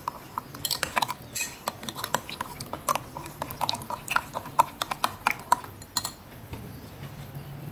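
Metal spoon stirring passion fruit pulp and sugar in a drinking glass, clinking against the glass in quick, irregular taps, several a second. The clinking stops about six seconds in.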